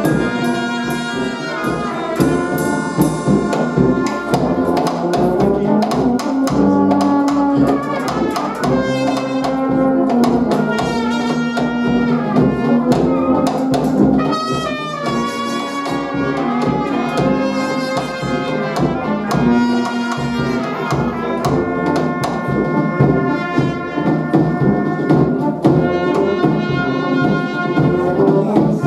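Brass band music with trumpets and trombones playing continuously.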